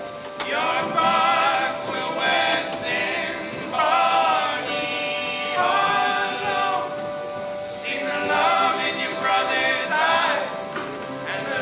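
Live unplugged folk song: male voices singing in sung phrases with short breaks, over acoustic accordion, acoustic guitar and upright bass.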